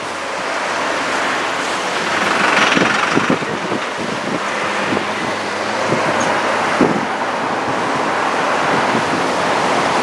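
Seaside ambience: a steady rush of surf mixed with road traffic, swelling about two to three seconds in.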